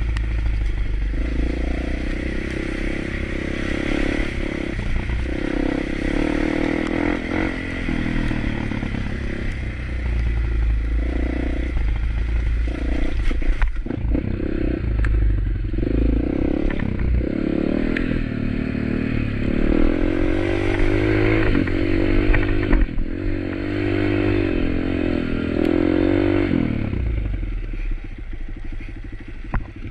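Motorcycle engine running under way, its pitch rising and falling again and again as the throttle is opened and closed.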